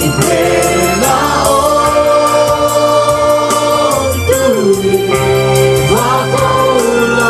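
Live worship song: a man sings into a microphone with long held notes, over a band with steady bass notes and percussion, and the gathering sings along.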